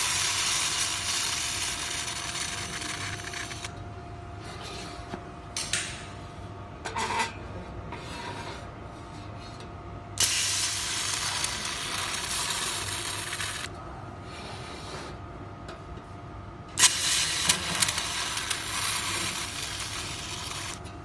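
Handheld fiber laser welder (Raycus 1000 W source) welding a seam in steel sheet: a steady hissing sizzle in three passes of about three to four seconds each, at the start, about ten seconds in and about seventeen seconds in. Between the passes a faint steady machine hum and a few light clicks remain.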